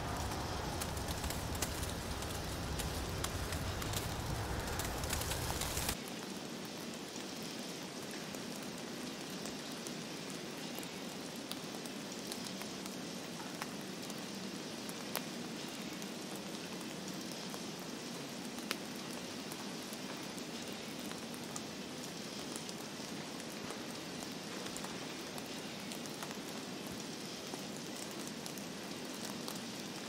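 Steady hiss of heavy snowfall, with faint scattered ticks of flakes landing. A low rumble under it cuts off suddenly about six seconds in, leaving the hiss slightly quieter.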